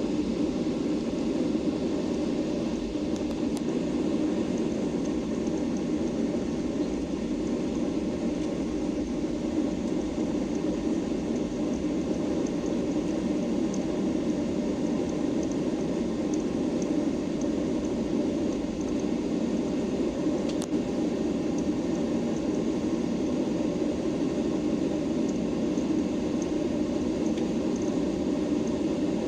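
Steady cabin noise of a Boeing 737-800 in flight or on the ground, a constant hum of jet engines and airflow, with a faint high whine above it.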